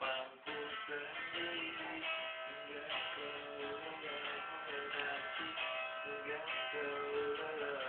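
Guitar music: strummed chords under a held, bending melody line.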